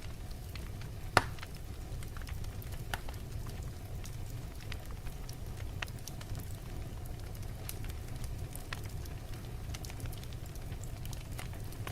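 Wood fire burning in a fireplace: a steady low rumble of flames with scattered sharp crackles and pops, one louder pop about a second in.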